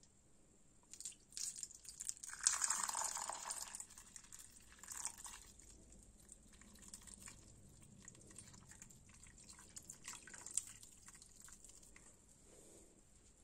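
Water poured from a teapot onto a lemon in a glass bowl, splashing, loudest about two to four seconds in, then thinning to faint drips and trickles.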